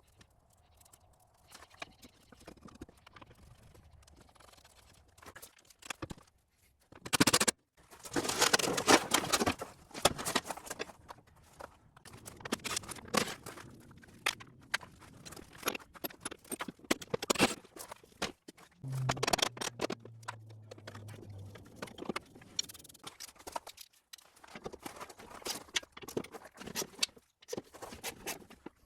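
Hand tools and metal parts clanking, clicking and scraping during work on a riding mower's deck and blade spindle, in irregular knocks with a short low hum about two-thirds of the way through.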